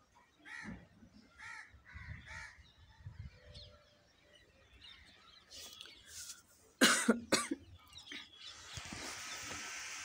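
Rose-ringed parakeet giving short harsh calls, then two or three loud harsh screeches about seven seconds in. A steady hiss sets in near the end.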